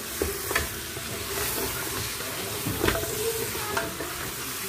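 Pork ribs sizzling as they sauté in lard in an aluminium pressure cooker, stirred with a wooden spoon. The spoon knocks and scrapes against the pot a few times over the steady sizzle.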